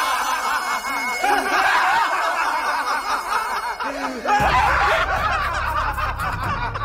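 Several people laughing and snickering at once, in short overlapping bursts. About four seconds in, a low steady rumble and a run of sharp clicks come in under the laughter.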